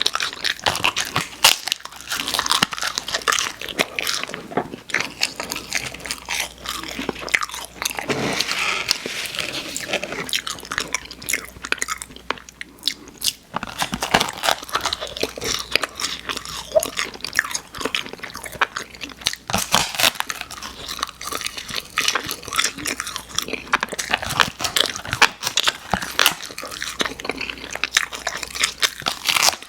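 Close-miked crunchy biting and chewing of hard candy, a dense run of sharp crackling crunches with a brief lull about halfway through.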